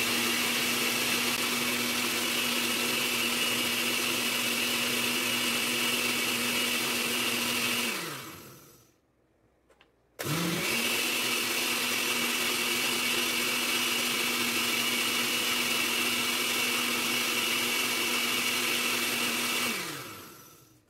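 Countertop blender blending a milk-and-mango smoothie, its motor running at a steady pitch. About eight seconds in it winds down and stops for a second or so, then starts again with a rising whine and runs steadily before winding down near the end.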